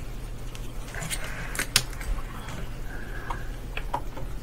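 A few light clicks and small handling noises over a steady low hum.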